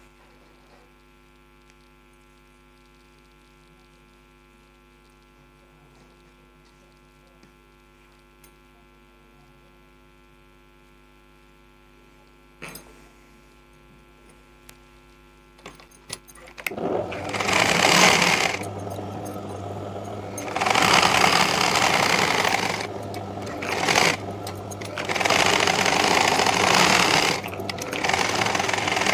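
Low steady mains hum with a couple of faint clicks for the first two-thirds. Then a sewing machine starts stitching a sleeve seam in runs of two to three seconds, with short pauses between.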